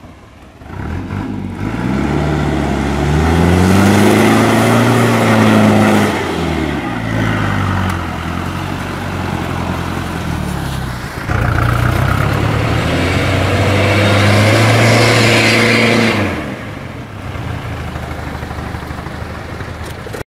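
Truck diesel engine revving hard under load as the truck churns through deep mud, its pitch climbing and falling twice, with a steady rush of spinning tyres and mud between the revs.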